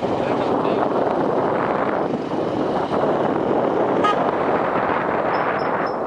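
Motorcycle riding at low speed, its engine under a steady rush of wind noise on the microphone, with a single short horn toot about four seconds in.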